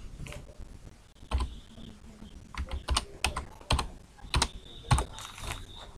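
Computer keyboard keys being typed: about ten irregularly spaced clicks as a number is entered.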